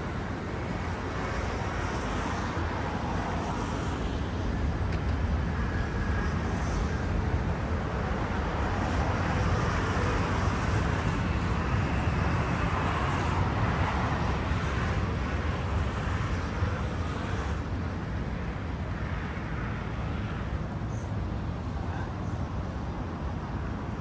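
An airplane passing overhead. Its rumble swells over several seconds to a peak near the middle, then fades away over a steady hum of city traffic.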